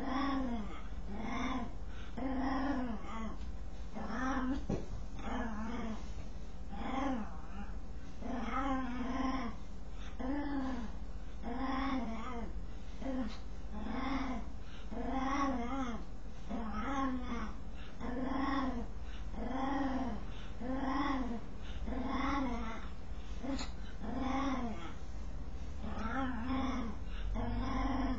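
Dog vocalizing while scratching itself: a long rhythmic train of short, pitched moaning calls, each rising and falling in pitch, a little more than one a second and never pausing.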